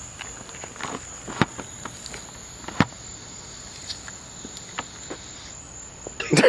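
Bottle rocket fuse burning out without exploding, a dud: only scattered small crackles and clicks, with a louder crack near the end. A steady high insect drone runs underneath.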